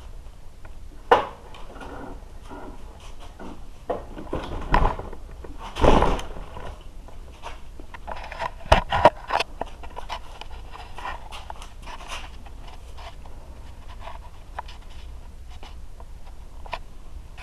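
Scattered knocks, clicks and scrapes of things being handled, the loudest about a second in, around five and six seconds in, and twice near nine seconds.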